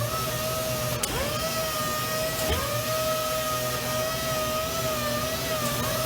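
Robot-held power sander running with a steady high whine. Twice, about a second in and again around two and a half seconds, its pitch drops sharply and climbs back as the motor briefly slows and speeds up again.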